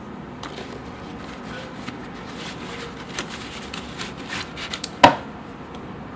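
Rustling and light clicks of a nylon drawstring pouch being pulled open and a Fotopro flexible tripod with jointed plastic legs slid out of it by hand, then one sharp knock about five seconds in as the tripod comes down on the table.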